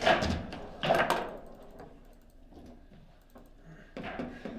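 Table football game in play: two loud, sharp knocks of the ball struck by the players' figures, about a second apart, then quieter clicking and rattling of the rods, with more knocks near the end.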